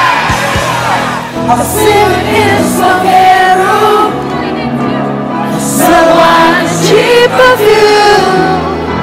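A song playing, with a lead singer over a bass line.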